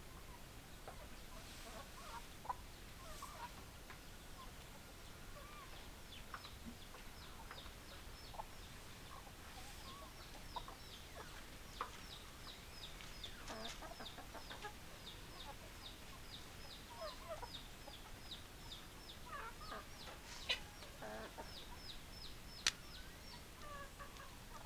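Chickens clucking quietly, with a long run of short, high, falling chirps at about three a second through most of it and a few sharp clicks.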